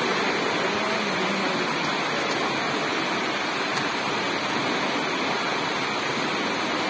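Steady, even rushing noise with no ball strikes or distinct voices.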